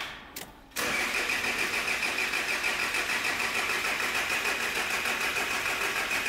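Starter motor cranking a Kia Sorento 2.5 D4CB diesel with the injector connectors unplugged, so the engine turns over without firing while oil pressure builds. The cranking starts about a second in and goes on steadily, with an even pulse and a high whine.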